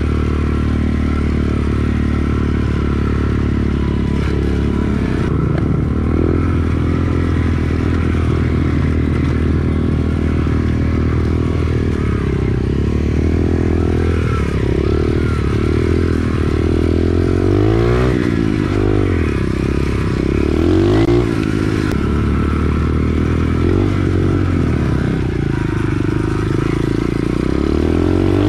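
SSR 110 pit bike being ridden, its small single-cylinder four-stroke engine running at a steady note, then revving up and down several times about two-thirds of the way through.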